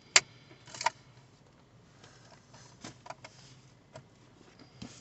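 A sharp click, then a second clattering click within the first second, followed by a few faint clicks and taps.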